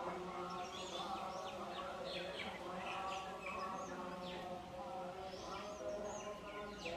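Many small birds chirping in quick, repeated falling notes, over a steady background of voices chanting in long held tones.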